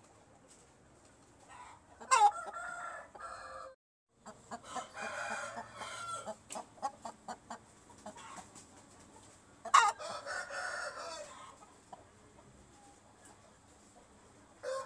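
Turki-breed rooster crowing: a loud crow about two seconds in and another about ten seconds in, with a longer, quieter call after a brief cut and short clucks between.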